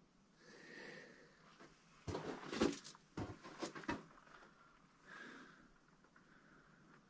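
Footsteps scuffing and knocking on the loose rocky floor of a mine tunnel, a quick run of them from about two to four seconds in, with soft breaths before and after.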